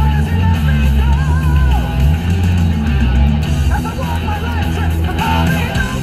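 Rock music with guitar and a steady bass line, playing on a car radio.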